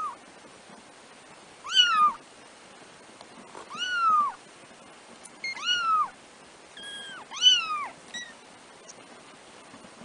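Three-week-old kittens mewing: about five short, high-pitched mews that each rise and then fall in pitch, spaced a second or two apart, the loudest near the end.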